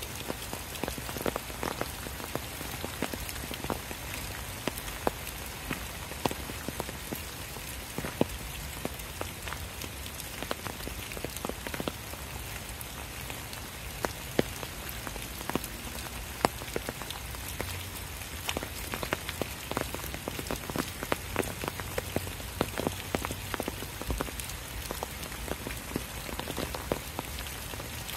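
Steady rain falling through woodland, with many sharp, irregular drop impacts close by over a constant hiss.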